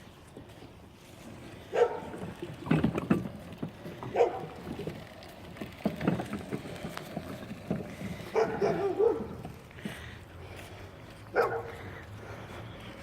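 A dog barking, about six short barks or bursts of barks spaced a second or two apart.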